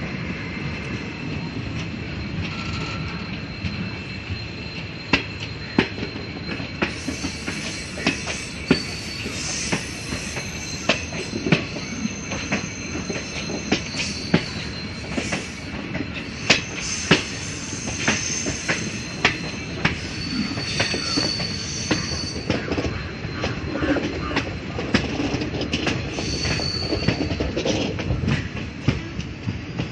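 Express train coaches rolling out through junction points: a steady rumble of wheels on rail, with frequent sharp, irregular clacks as the wheels cross rail joints and crossings. High thin wheel squeals come and go from about seven seconds in until near the end.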